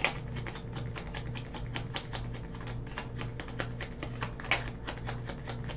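A tarot deck being shuffled and handled in the hand: a quick, irregular run of crisp card clicks and slaps.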